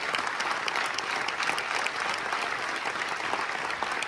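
Theatre audience and cast applauding together: many hands clapping in a dense, steady stream that holds at the same level throughout.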